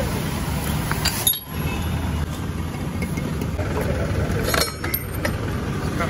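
A few sharp metallic clinks of tools working on a motorcycle's rear wheel, over a steady low rumble.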